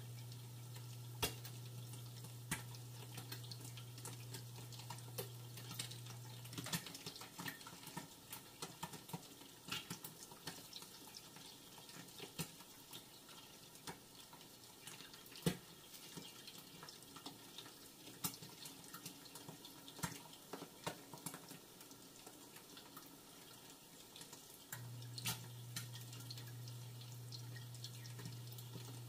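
Eggs frying in a covered stainless-steel pan: a soft sizzle with irregular pops and crackles of spattering fat and moisture under the glass lid. A low steady hum sounds underneath, stopping about seven seconds in and coming back about four seconds before the end.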